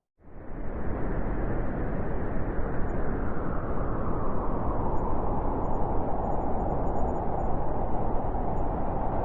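Howling wind that cuts in abruptly just after a moment of silence, then blows steadily and strongly. A higher whistling band grows a little stronger near the end.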